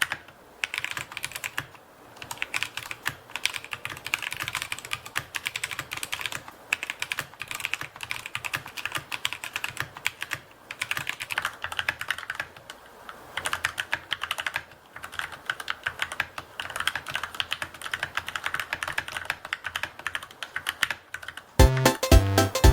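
Typing on a budget mechanical keyboard: a steady patter of keystrokes in runs with brief pauses between them. Background music starts near the end.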